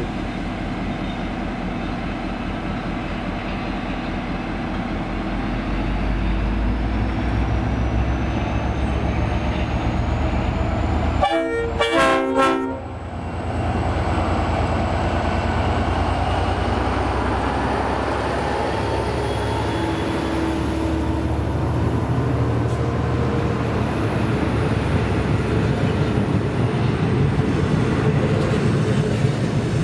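A train running by with a steady rumble, its horn sounding one short blast of about a second and a half near the middle.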